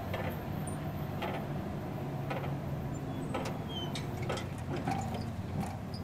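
Safetran railroad crossing gate mechanisms raising the gate arms at the end of a crossing cycle: a low steady hum with short clicks about once a second.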